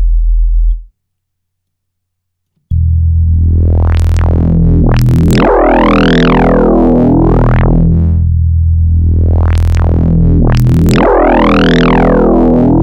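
Deep synth note from two phase-modulated sine oscillators in Bitwig's Poly Grid. A short note cuts off about a second in, and after a silence a long note is held. Its overtones sweep up bright and fall back twice as Reaktor Blocks multistage envelopes modulate the patch.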